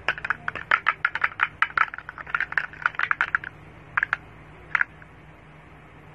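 Rapid clicking and tapping of a small hard black plastic container being handled, its hinged parts knocked and fiddled together; the clicks come thick and fast for about three and a half seconds, then thin out to a few single clicks.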